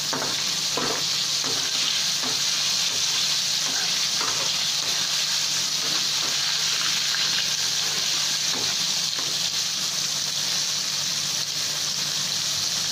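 Flour-coated mandeli fish deep-frying in hot oil in a kadhai: a steady, even sizzle, with a few light clicks of a perforated steel slotted spoon against the pan in the first few seconds.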